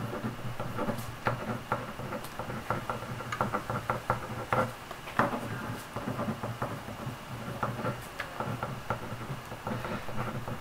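A pen writing on notebook paper at a desk: irregular small scratches and taps of the pen tip.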